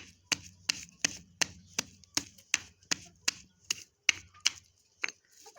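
Knife finely chopping garlic, about three even strokes a second, stopping near the end.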